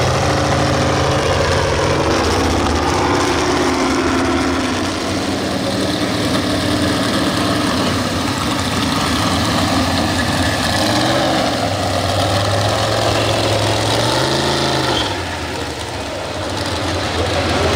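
Naturally aspirated two-wheel-drive pulling truck engine idling loudly and unevenly. About fourteen seconds in it gets a quick rev that rises and falls.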